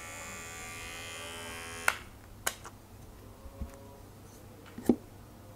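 Kiki New Gain NG-110 cordless hair clipper running with a steady motor buzz, cut off with a sharp click about two seconds in as it is switched off. A few clicks and knocks follow as plastic guard combs are handled and the clipper is set down.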